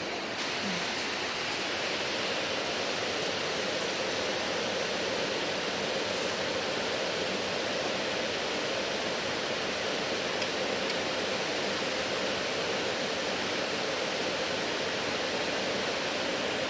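Gearless permanent-magnet elevator traction machine running under its inverter drive during auto-tuning: a steady rushing noise with a faint hum, a little louder from about half a second in.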